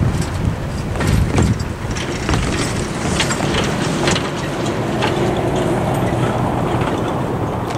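A pickup truck drives across the railroad tracks and passes close by. There are a few sharp knocks in the first few seconds as its tyres go over the rails.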